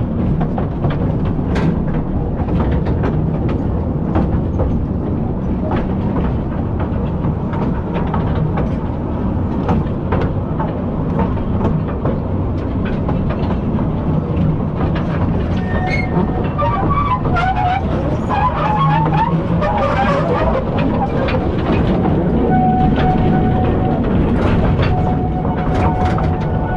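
Coal-mine trolley train running through a tunnel: a steady rumble with the wheels clicking and knocking over the rails. A thin steady whine joins in over the last few seconds.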